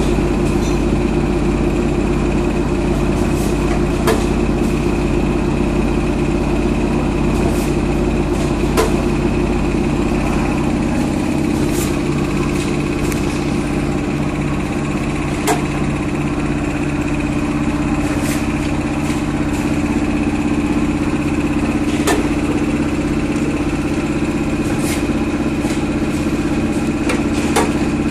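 Chips snack packing machine running: a steady motor hum with a thin high tone over it, and sharp mechanical clicks every one to three seconds.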